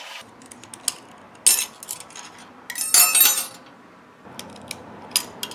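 Sharp metal-on-metal clicks and clinks of hand tools prying the retaining ring off the splines of a 47RH transmission clutch hub. There is a loud clink about a second and a half in, and a short ringing clatter of steel about three seconds in.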